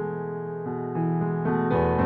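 Background piano music: sustained notes and chords, with a new note or chord coming in about every half second.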